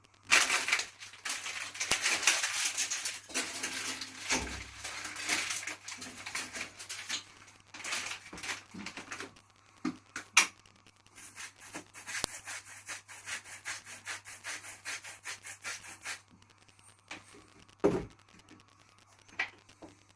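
Pot of spaghetti being cooked: dense crackling and rubbing noise that stops about 16 seconds in, followed by a few single knocks and a dull thud.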